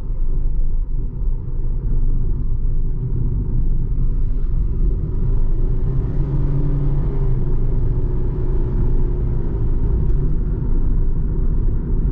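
Cabin noise inside a 2020 Toyota Fielder hybrid wagon driven gently, not floored: a steady, pretty quiet low road-and-tyre rumble. A faint drivetrain hum rises and fades around the middle.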